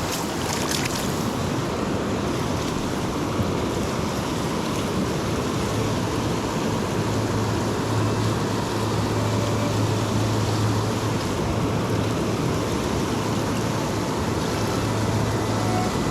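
Steady rush of flowing river water, with a low steady hum joining in about six seconds in.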